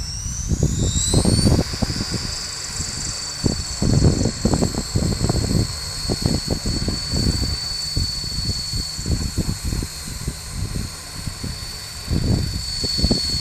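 Electric motor and contra-rotating rotors of a ramo COAX2012 coaxial RC helicopter (Z-Power Z30 brushless motor) spooling up. A rising whine levels off after about a second and a half into a steady high whine, with gusty low buffeting on the microphone throughout.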